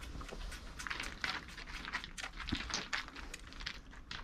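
Young goat kid suckling from a milk bottle: irregular soft slurps and smacking clicks.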